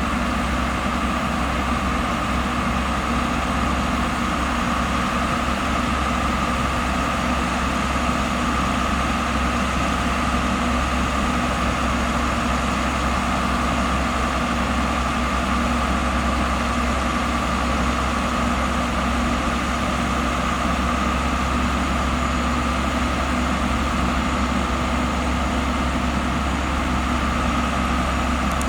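Heavy diesel engine of a bulldozer running steadily at an even pace, with no change in speed.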